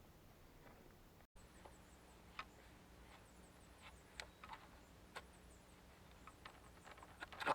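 Faint, irregular light clicks and taps, a few seconds apart, over a quiet background with a faint high chirping that repeats. The sound drops out for an instant about a second in.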